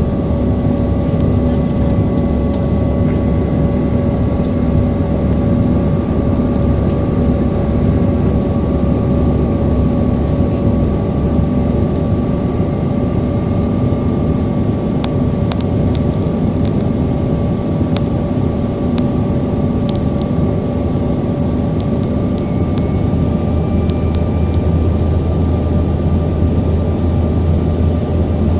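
Airliner cabin noise in flight: the aircraft's engines drone steadily under a rushing hiss, with several steady tones. A deeper hum grows stronger about three-quarters of the way in.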